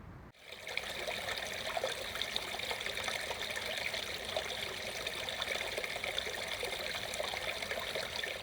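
Small stream of water trickling steadily, starting abruptly a fraction of a second in.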